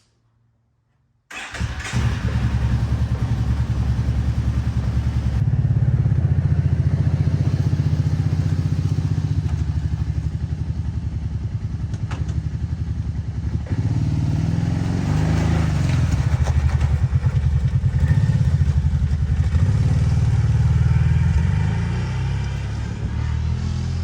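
Kawasaki Brute Force 750 ATV's V-twin engine running steadily, most likely idling with its newly fitted idle air control valve. It cuts in abruptly about a second in, and engine speed rises and falls slightly about halfway through.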